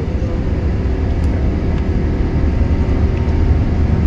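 Airbus A380's jet engines running, a steady low rumble heard inside the cabin as the airliner lines up on the runway for takeoff, growing slightly louder.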